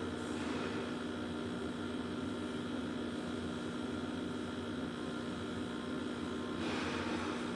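Steady electrical mains hum with hiss from an old CRT television showing a still caption, with a short swell of hiss near the end.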